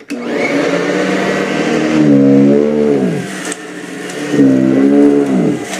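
Sanitaire commercial upright vacuum cleaner switched on, its motor whining up to speed, then running with its pitch dipping and rising twice.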